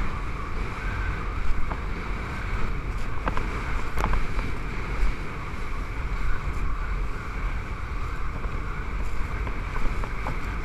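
Wind rumbling on the microphone of a GoPro Hero3 mounted on a kitesurfer riding at speed, with water hissing under the board. A few light ticks, like spray hitting the camera housing.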